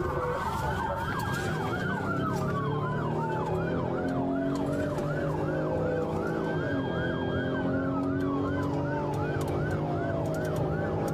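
Police car siren on a rapid yelp, its pitch sweeping up and down about two to three times a second, with a slower wailing siren gliding downward over it several times, above steady vehicle noise.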